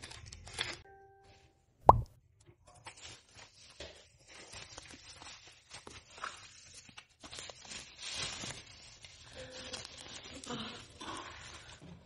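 Bubble wrap and plastic film crinkling and rustling as they are pulled off a new child's bicycle, with one sharp pop about two seconds in.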